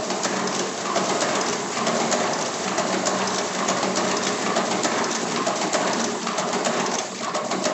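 A 1950s Rotafix 88 hand-operated stencil duplicator being cranked, its mechanism giving a steady, dense clicking rattle.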